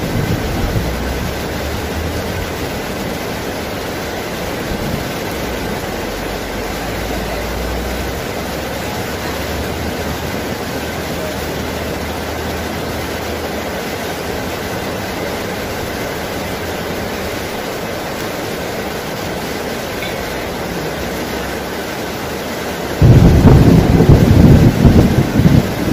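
Heavy tropical rain pouring steadily, with a faint low rumble of thunder in the first several seconds. A sudden loud clap of thunder breaks in near the end and rumbles on.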